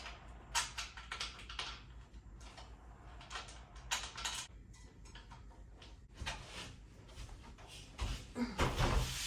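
Flat-pack desk parts being unpacked and handled: a run of short knocks, clicks and scrapes, with heavier thumps about eight seconds in.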